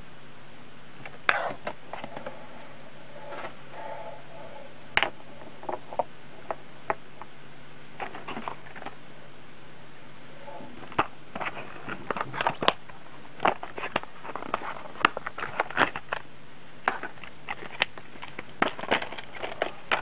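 Plastic blister packaging handled in the hands, crackling and clicking in irregular sharp snaps, sparse at first and coming thick and fast through the second half, over a steady low hum.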